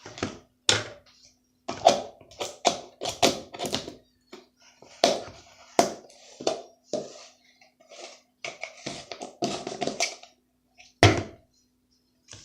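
Slime being squeezed and handled, giving irregular squishing and tapping sounds, one louder one near the end, over a faint steady hum.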